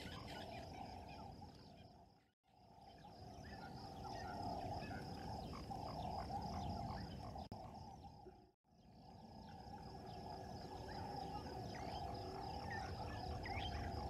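Bush ambience: insects trilling in a steady, evenly pulsing chorus over a lower steady hum, with many short bird calls scattered through it. The sound dips out briefly twice, about two and a half and eight and a half seconds in.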